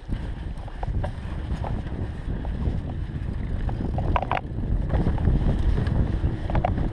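Mountain bike rolling fast over a dirt singletrack, wind noise on the microphone over the rumble and rattle of tyres and frame. A couple of short, higher sounds cut in about four seconds in and again near the end.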